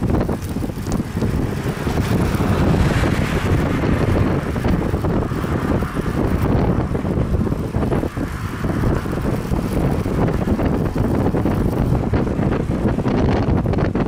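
Strong wind buffeting the microphone of a camera riding on a road bicycle: a loud, dense, flickering low rumble with rushing noise above it.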